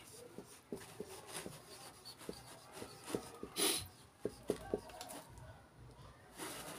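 Marker pen writing on a whiteboard: faint, irregular squeaks and taps of the felt tip, with a couple of short swishes.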